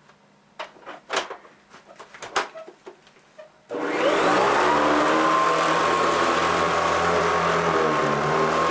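A few clicks and knocks, then about four seconds in a Hoover Decade 800 upright vacuum is switched on: its motor whine rises as it spins up, then settles into a steady run.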